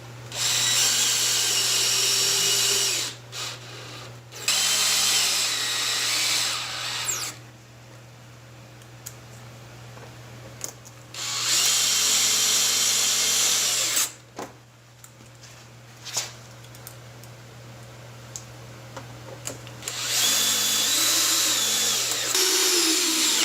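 Power drill driving #8 pan-head screws through a plexiglass sheet into a PVC pipe frame, in four separate runs of two to three seconds each with pauses between. The screws are run in slowly so the plexiglass doesn't crack.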